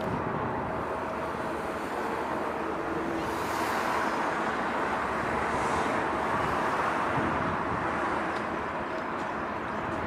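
Steady mechanical rumble and hiss with a faint steady hum through it, swelling slightly in the middle.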